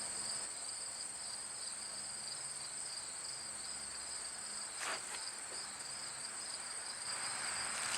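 Steady high-pitched insect chorus, with a continuous trill and a second slightly pulsing one, like crickets or katydids. A faint short tap comes about five seconds in.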